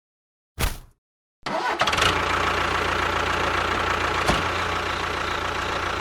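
After a short burst of noise, a motor starts about a second and a half in and runs steadily with an even hum.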